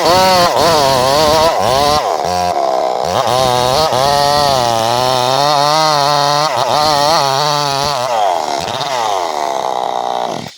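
Chainsaw cutting through wood, its engine pitch rising and falling repeatedly as the chain bites and eases. It drops out suddenly near the end.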